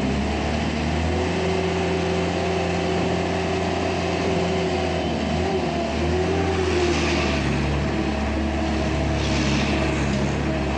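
Skid steer loader's engine running steadily, its pitch shifting slightly partway through, with two brief hissing sounds about seven and nine and a half seconds in.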